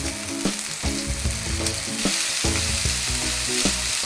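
Chicken and lotus-root tsukune patties sizzling steadily in hot oil in a frying pan, with light clicks of metal tongs as they are turned over.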